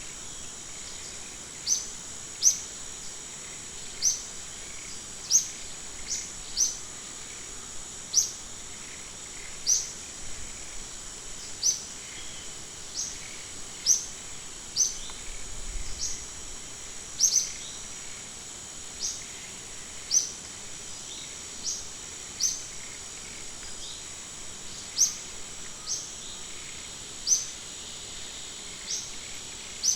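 Short, high chirps from an animal, repeated every one to two seconds, over a steady high insect hiss.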